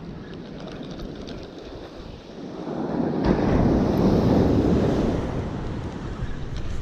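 Waves breaking and washing up a beach, with wind buffeting the microphone; the surf swells louder about halfway through, then eases off.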